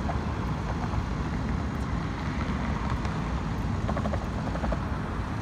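Steady low rumble of road traffic at a wide city intersection.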